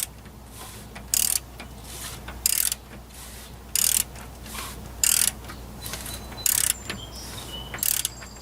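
Ratchet wrench turning a Ford 5.4 3V V8 over by hand at the crankshaft: a short burst of ratchet clicks about every second and a quarter as the handle is swung back between pulls, seven times. The freshly timed and oiled engine is turning smoothly.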